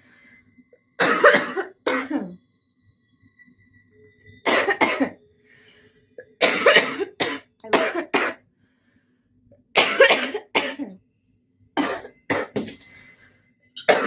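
A smoker's morning coughing fit: a person coughing hard in about five bouts of two to five harsh coughs each, with short gaps between the bouts.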